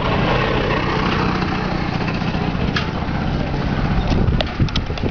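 Metal hand truck loaded with a gas cylinder rolling over the street with a steady low rumble, with a few sharp knocks near the end.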